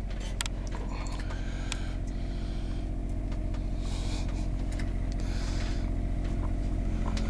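A steady low mechanical hum with a throbbing pulse, growing slightly louder, like a motor running. Over it come a few light computer keyboard clicks and two brief soft rustles.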